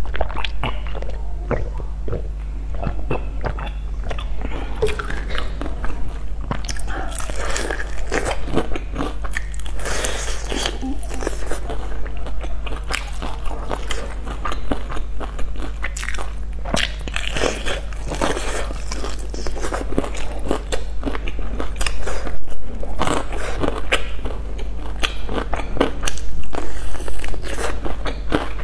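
Close-miked eating of sauce-coated fried chicken: crunchy bites into the fried crust and wet chewing, irregular and continuous, over a steady low hum.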